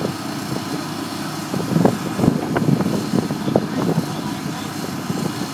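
Heavy-equipment engine running steadily while a precast concrete manhole section is lowered onto a storm sewer pipe. A run of knocks and scrapes comes from about a second and a half to four seconds in as the section is guided into place.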